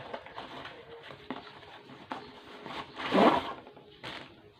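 An aluminium tripod being unpacked and handled: scattered small clicks and knocks, with one louder, brief scraping sound about three seconds in.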